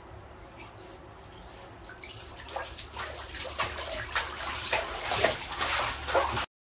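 Bathwater splashing and sloshing as a Shiba Inu paddles and moves about in the tub. The splashes grow louder from about two seconds in and stop suddenly near the end.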